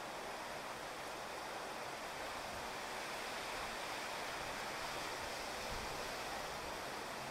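Steady rain falling on a wet paved street and grass, an even hiss that holds at one level.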